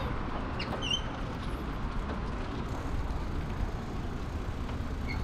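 Steady low rumble of a bicycle being ridden along pavement, with wind on the handlebar-mounted microphone and the tyres rolling.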